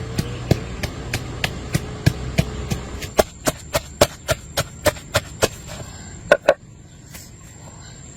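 Sharp, rhythmic chopping strikes, about two a second at first, quickening after about three seconds and ending with a final loud pair about six and a half seconds in. A low steady hum runs under the first three seconds.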